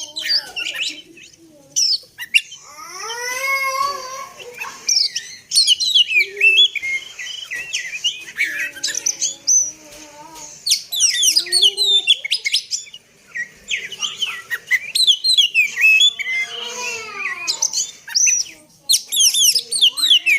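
Oriental magpie-robin (kacer) singing a fast, varied song of chirps and whistles, with lower swooping phrases twice.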